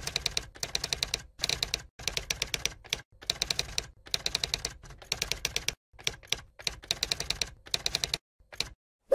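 Typewriter sound effect: quick runs of key clacks, each run about a second long, with short gaps between them. One louder knock comes at the very end.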